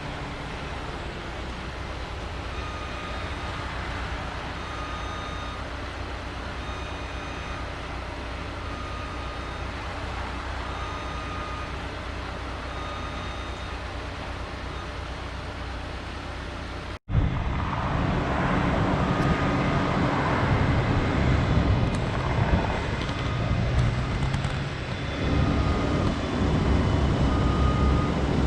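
Heavy construction machinery running steadily, with faint short beeps repeating about once a second. After an abrupt cut about two-thirds of the way through, the machinery is louder and rougher.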